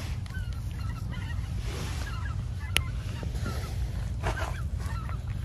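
A flock of birds calling over and over in short, scattered calls, over a steady low rumble of wind on the microphone, with one sharp click about three seconds in.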